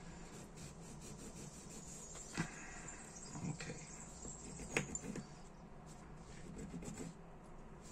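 Faint rubbing and handling noises from fingers working a small lighter part, with two light clicks, about two and a half and five seconds in, over a low steady hum.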